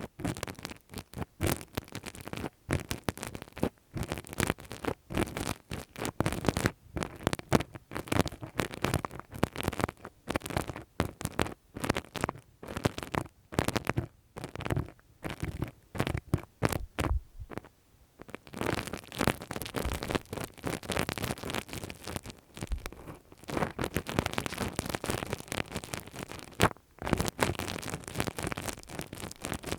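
Close-miked ASMR ear-cleaning sounds: a tool scratching and rubbing against the microphone in a fast, irregular run of crackly scrapes and taps.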